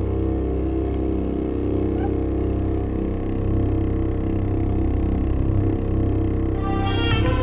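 Slow background music with sustained low notes over a low drone; brighter, higher notes come in near the end.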